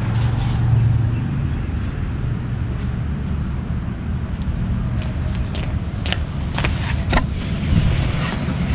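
Steady low outdoor rumble with an uneven flutter, then several sharp clicks and knocks in the last few seconds as the camera is picked up and handled.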